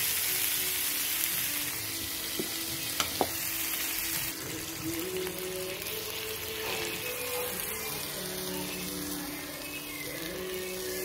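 Water sprinkled on a hot dosa tawa sizzling, a loud hiss that drops away about four seconds in as batter goes onto the pan; two sharp clicks a moment before. The batter is then spread around in circles with a ladle, a softer sizzle and scraping continuing.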